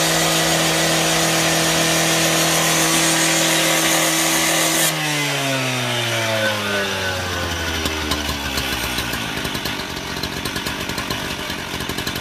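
Two-stroke gas cut-off saw running at full throttle while cutting. About five seconds in the throttle is released, the engine pitch slides down over a few seconds, and it settles into an uneven idle.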